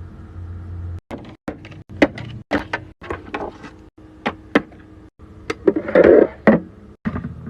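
Skincare bottles and jars being handled and set down, making a run of sharp clicks and taps about two a second. A louder clatter comes about six seconds in, and a low hum sounds during the first second.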